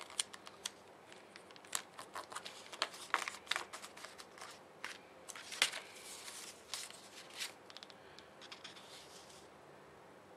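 Stickers being peeled off a paper sticker sheet and pressed onto planner pages: irregular small crackles, ticks and taps of paper handling, thinning out near the end.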